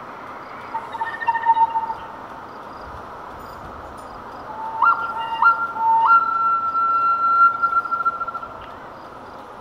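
Background music: a solo flute playing a slow melody of long held notes. A short phrase comes about a second in, and a longer one from about halfway ends on one long high note. A soft hiss runs underneath.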